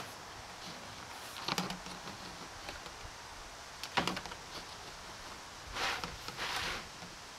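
Utility knife blade scraping along the seam of a vinyl siding corner trim piece, cutting off its mounting flange. Sharp clicks come about a second and a half in and, louder, about four seconds in, and there are two short rasping scrapes near the end.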